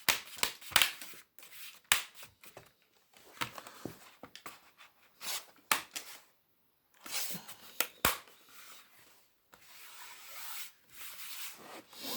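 Hands handling a laptop: scattered sharp clicks and taps, with short stretches of rubbing and scraping.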